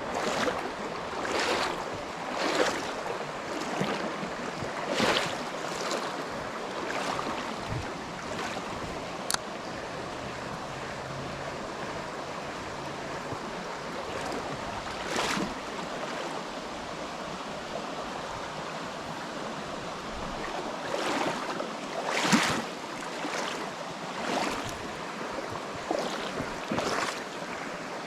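Steady rush of flowing water from a stream running high after a flash flood. Over it come short repeated swishes about once a second, in a run at the start and another near the end.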